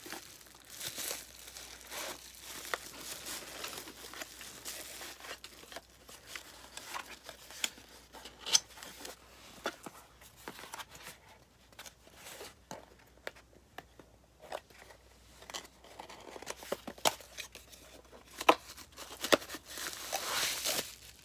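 Brown kraft packing paper and a small cardboard box being handled: irregular crinkling and rustling with scattered sharp crackles.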